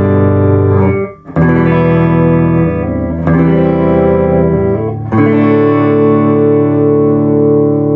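Epiphone Les Paul electric guitar on its neck pickup through a clean amp, strumming chords: three chords struck about two seconds apart, each left to ring, the last one sustained to the end.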